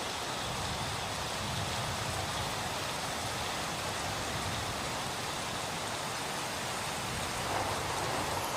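Waterfall: water falling and rushing in a steady, even roar of noise.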